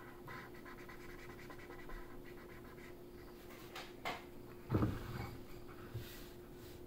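Felt-tip marker scratching on paper in short, uneven strokes over a faint steady hum, with a click just after four seconds and a short low thump about five seconds in.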